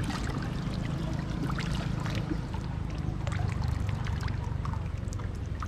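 Bare feet wading through shallow muddy water, with repeated small splashes and sloshing throughout, over a low steady rumble.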